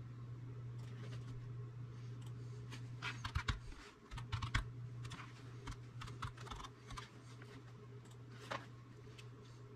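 Clicking and tapping at a computer keyboard and mouse: a quick run of clicks about three seconds in, then scattered single clicks, over a steady low hum.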